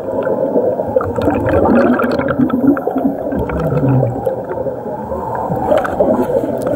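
Scuba diver's exhaled air bubbles gurgling and rushing past an underwater camera, a continuous muffled bubbling heard through the water.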